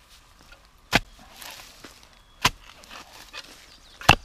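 A spade blade stabbing into soil while digging a hole. There are three sharp strikes about a second and a half apart, the last the loudest, with some scraping of earth after the first.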